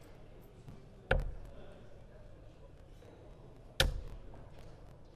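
Two darts thudding into a sisal bristle dartboard, one about a second in and one near four seconds, each a sharp, loud thunk with a short tail.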